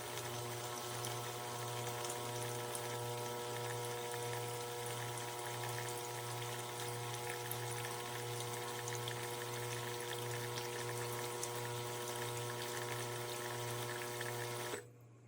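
De'Longhi Magnifica Start espresso machine's vibratory pump running with a steady hum as water is pumped and poured through. It cuts off suddenly near the end.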